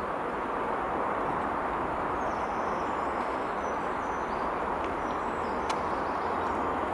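Class 37 diesel-electric locomotive, with its English Electric twelve-cylinder engine, running as it approaches at the head of a passenger train, a steady noise growing slightly louder. Faint bird chirps sound above it.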